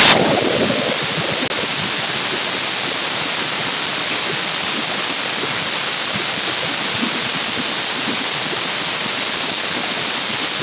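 Pressure cooker whistle: steam venting from the weight valve in a steady, loud hiss.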